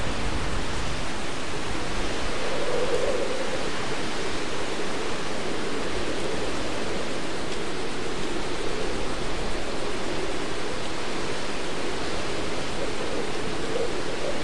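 Hurricane wind and rain as one steady, dense rush of noise, with a lower hollow tone in it that swells briefly about three seconds in and again near the end.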